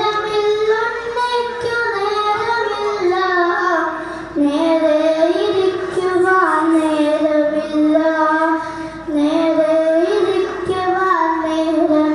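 A boy singing a Malayalam poem into a handheld microphone in a melodic recitation style, holding long notes that step up and down, with short breaks between lines.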